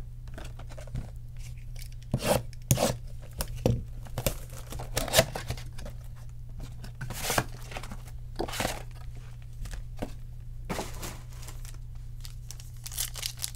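Tearing and crinkling of packaging as a 2020 Bowman Sapphire Edition box of baseball cards is opened and its foil packs handled: irregular sharp rips and rustles every second or two.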